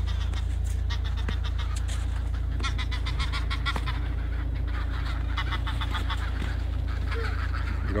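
A flock of geese honking, many short calls coming in bouts, over a steady low rumble.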